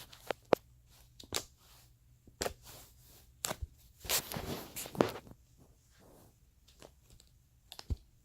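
Hands pulling off pieces of softened clay for butter slime: scattered sticky clicks, pops and short tearing sounds, with a louder rustling stretch around the middle.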